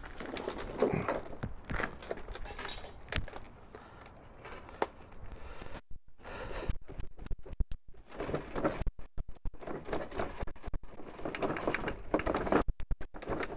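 Plastic deck of a Neuton electric lawn mower being tipped over and shaken, with irregular knocks, rattles and rustling as dirt and grass debris spill out onto the pavement.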